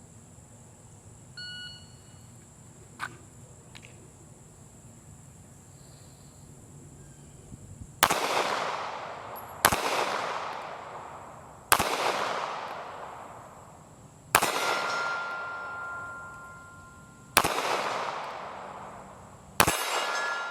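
A shot timer beeps once. Several seconds later a Glock 43 9mm pistol fires six single shots, spaced about one and a half to three seconds apart, each echoing away. After two of the shots a hit steel target rings.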